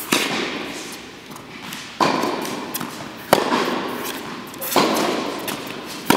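A tennis groundstroke rally: the ball is struck by rackets and bounces on the court about five times, roughly one to one and a half seconds apart. Each sharp pop echoes for a moment in the large indoor court hall.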